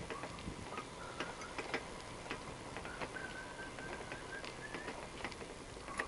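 A bicycle being ridden along a paved road, giving off small irregular clicks and ticks, with a faint thin steady tone in the second half.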